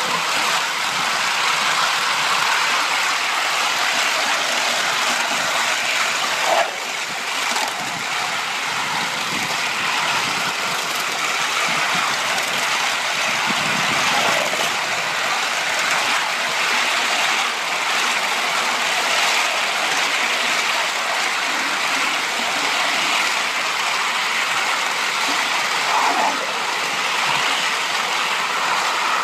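3½-inch gauge live steam model of a BR Standard Class 9F 2-10-0 running along its track: a steady hiss and clatter of steam and wheels on the rails, with a short knock about six and a half seconds in and a smaller one near the end.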